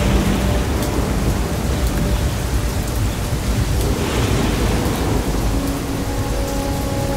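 Thunderstorm: steady rain falling with a continuous low rumble of thunder. A few soft held music notes sit faintly over it, with a new chord coming in near the end.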